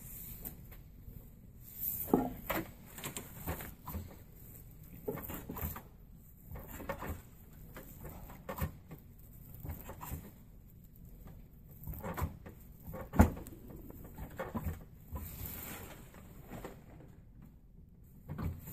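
Rope strands rustling, swishing and clicking as they are handled and pulled tight while braiding a bronc rein, with scattered light taps and one sharper tap about two-thirds of the way through.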